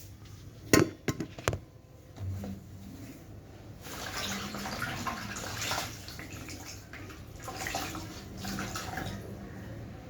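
Household cleaning sounds: a quick clatter of dishes, three or four sharp knocks about a second in, then two spells of water running or splashing.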